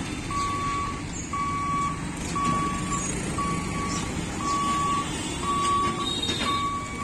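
Level-crossing warning beeper sounding steadily, one single-pitched beep about every second, each about half a second long, over the rumble of motorbikes and auto-rickshaws crossing the tracks.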